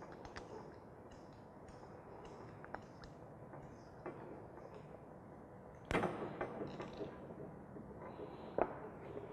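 Plumbing parts being handled while a pump is connected to a sprinkler pipeline: scattered small clicks and taps, a louder clatter about six seconds in, and a sharp knock near the end.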